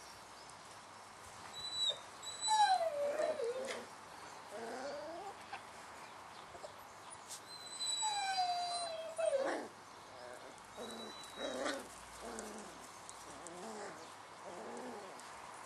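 Four-week-old Dalmatian puppies whining and yelping: several high cries that slide down in pitch, the longest about two seconds in and again about eight seconds in, with shorter squeaks in between.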